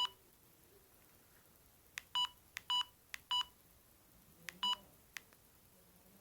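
Panasonic EB-GD93 mobile phone's keypad: buttons clicked while stepping through its menu, most presses giving a short identical key beep. The beeps come at the very start, then three in quick succession about two seconds in, and one more near five seconds, with a few presses that only click.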